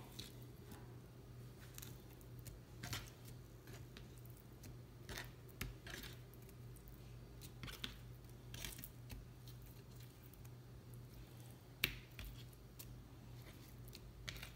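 Fingers picking up and flipping pieces of pounded raw dove breast on a plastic cutting board: scattered soft taps and light clicks at an irregular pace, one sharper click near the end. A faint steady low hum runs underneath.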